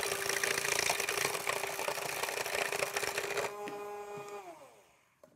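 Cuisinart EvolutionX cordless hand mixer whipping egg whites in a stainless steel bowl, its motor running at a steady pitch with the beaters whirring through the whites. About three and a half seconds in it is switched off and the motor winds down with a falling pitch.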